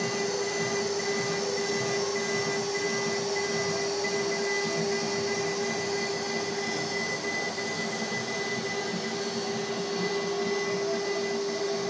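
CNC router spindle running with a steady high whine as the bit mills a wooden board, over the steady rush of the dust extraction pulling chips through the brush dust shoe.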